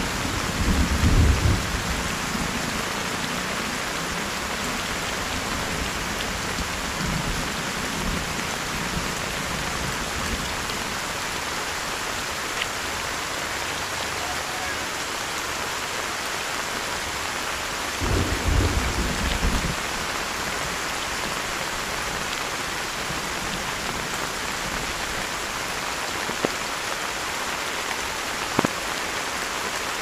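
Heavy rain falling steadily. Two short, low rumbles of thunder come about a second in and again around eighteen seconds in, each lasting about two seconds, and two faint clicks come near the end.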